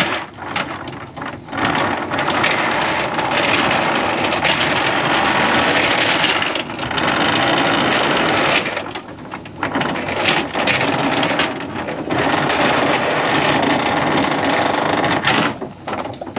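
Wind buffeting the microphone in loud gusts, a rushing noise with a few brief lulls.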